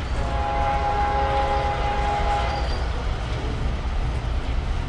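Diesel locomotive air horn sounding one long chord that stops about two and a half seconds in, over the steady low rumble of a double-stack intermodal train passing close by.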